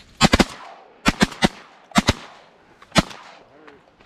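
A rapid volley of shotgun shots from several hunters firing at once at a duck, about nine sharp reports in quick clusters over three seconds.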